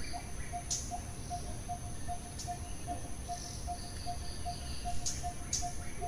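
Tropical outdoor ambience. One note is repeated evenly about two and a half times a second, over a steady high insect whine. A few short, high bird chirps come, about a second in, near the middle and twice near the end.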